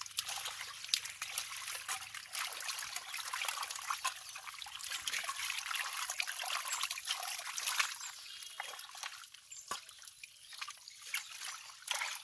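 Wet mud and water squelching, trickling and dripping while stinging catfish are grabbed by hand from liquid mud and handled in a crate, a steady stream of many small wet clicks and crackles.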